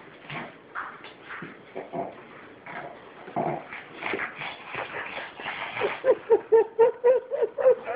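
Two small dogs play-fighting: scuffling and claws on a wooden floor, then, about three quarters of the way in, a quick, loud run of short whining calls, about five a second, from one of the dogs.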